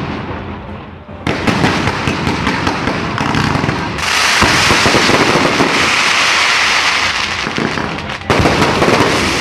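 Fireworks going off: a sharp bang about a second in, then a dense run of crackling from about four seconds, and another bang near the end.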